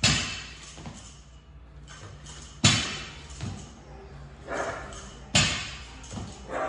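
Barbell loaded with bumper plates hitting a rubber gym floor three times, about two and a half seconds apart, each a loud thud with a brief metallic ring, with smaller knocks in between.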